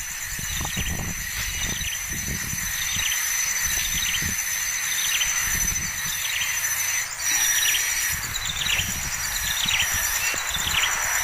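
A bird chirping over and over, short falling chirps about once or twice a second, over a steady high pulsing insect drone and a low rumble.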